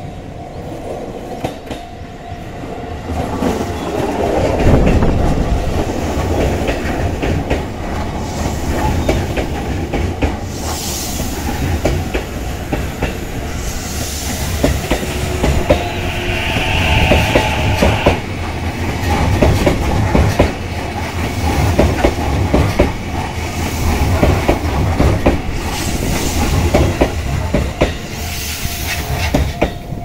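A JR East E233-series electric commuter train passing close, its wheels clattering over the rail joints in a repeated clickety-clack, with the whine of its VVVF inverter motor drive. A level-crossing warning bell rings steadily at the start until the train's noise drowns it out.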